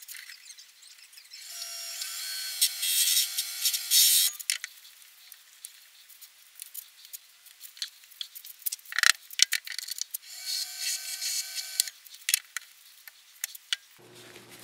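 A small motor whining in two short runs, the first about two and a half seconds long and the second about a second and a half, with clinks and knocks of metal chuck parts being handled around them and one loud knock in between.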